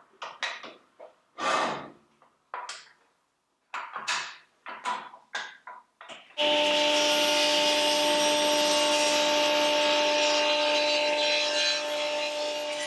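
A string of short rubbing and knocking sounds as the sliding table saw's fence and table are set. Then, about six seconds in, the saw runs with a steady humming tone and cuts through a beech plywood panel, a loud continuous hiss over the hum that eases slightly near the end.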